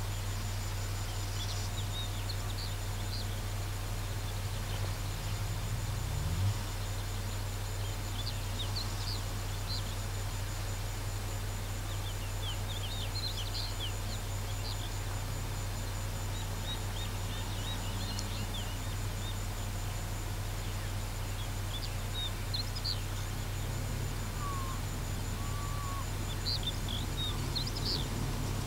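Small birds chirping in short runs of high notes every few seconds, over a steady low hum and a faint high whine.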